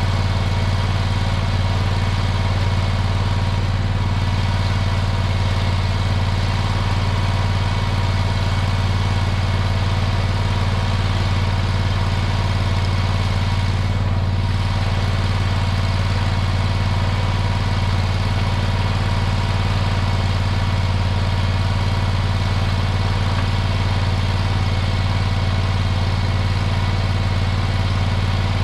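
Mini skid steer's engine idling steadily, a constant low hum with no change in speed.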